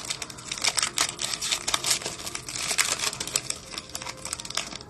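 Crinkling and rustling of plastic card packaging as trading cards are handled, with many small irregular clicks and crackles.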